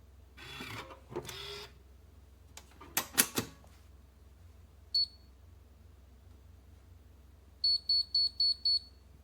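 Scraping handling noise and a few sharp clicks, then one short high electronic beep and, near the end, a quick run of five beeps from the RPNB biometric pistol safe.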